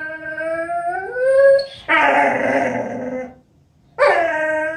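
Vizsla dog whining in long, drawn-out, howl-like calls: one call rises in pitch, then a rougher, breathier stretch, a short pause, and another call near the end.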